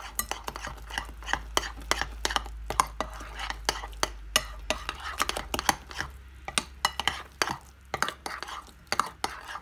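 Thick paratha batter being stirred in a cut-glass bowl. Wet scraping and squelching, with many irregular clicks and knocks against the glass, several a second.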